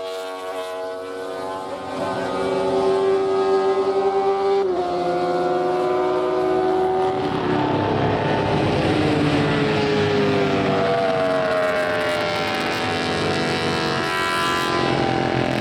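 Honda six-cylinder four-stroke Grand Prix racing motorcycle engines running at high revs. The pitch drops sharply about five seconds in, then slides up and down as a second engine overlaps in the middle, with the revs climbing again near the end.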